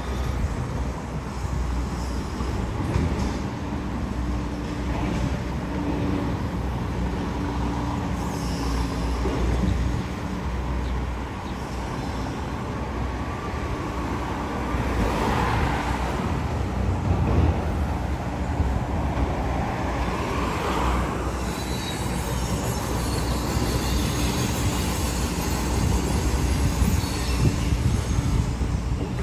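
Demolition-site noise: a Liebherr high-reach demolition excavator's diesel engine drones steadily while its jaws break up the concrete building, with debris clattering down and road traffic passing by; a louder rushing swell comes about midway.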